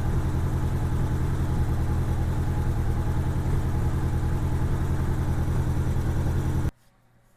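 1987 Honda GL1200 Gold Wing's flat-four engine running at a steady idle with a little popping, a misfire that new ignition coils have not cured. It cuts off suddenly near the end.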